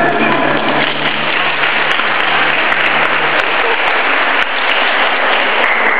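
Audience applauding steadily as the routine's music ends.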